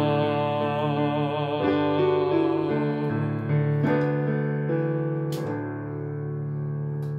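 Closing bars of a hymn: a man holds the final sung note with vibrato over keyboard piano chords. It ends after about a second and a half, then the piano plays a few more chords, the last one ringing on and slowly fading.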